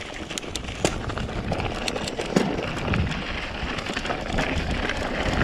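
Mountain bike rolling along a dirt trail: steady tyre noise with scattered clicks and rattles, growing louder as it picks up speed.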